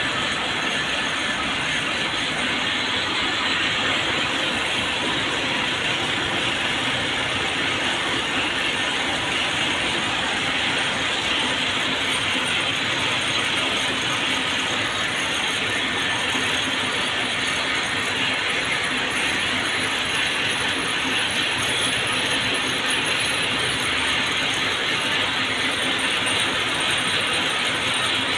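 Thread-winding and cord-making machines running together, a steady dense mechanical clatter.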